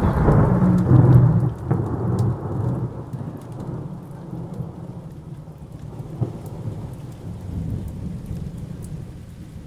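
Thunder rumbling, loudest in the first two seconds, then rolling away and fading over the rest, with rain falling.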